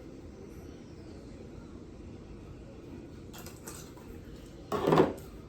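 Kitchen handling noise during seasoning: a couple of light clicks a little past three seconds, then one brief loud clatter near the end, like a container or dish being knocked or set down.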